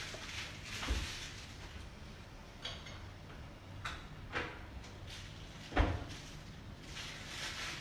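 A handful of separate knocks and clunks, as of kitchen containers or utensils being picked up and set down, the loudest about six seconds in, over a faint steady hiss.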